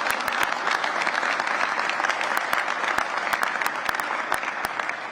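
Audience applauding steadily, a dense patter of many hands clapping that begins to fade near the end.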